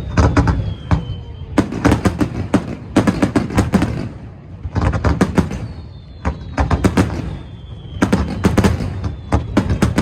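Fireworks display: rapid volleys of sharp cracks and crackling bursts over a low rumble of booms, coming in clusters every second or two.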